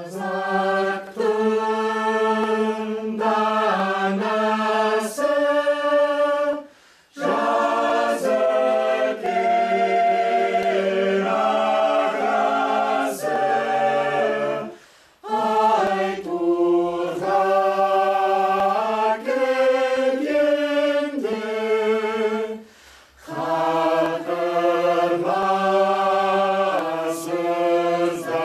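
Mixed choir singing a slow chordal passage in Kazakh, in four long phrases with short breaths between them.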